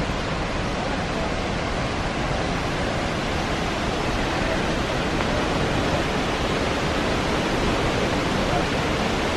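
Steady rush of a large waterfall, an even noise of falling water without breaks.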